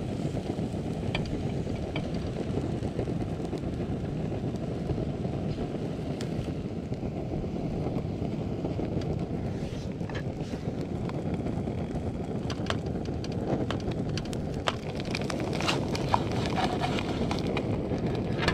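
Egg-filled bread slices frying in oil in a cast iron pan, with faint crackling and spitting ticks that grow busier in the last few seconds, over a steady low rushing noise.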